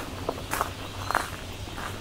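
Footsteps crunching on a gravel path, three steps in about two seconds at an even walking pace.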